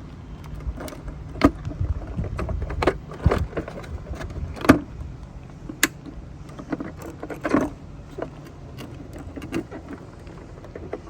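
Irregular plastic clicks and knocks as the latches and pull tabs of a cordless robotic pool cleaner's housing are worked open by hand, over a low rumble.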